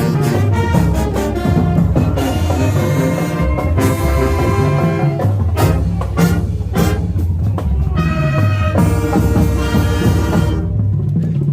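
High school marching band playing loudly, brass horns over a driving drum line, the music stopping abruptly near the end.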